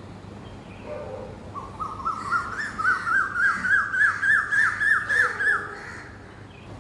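Asian koel calling: a quick series of about fifteen short rising notes, about three a second, climbing a little in pitch and growing louder before stopping about 6 seconds in.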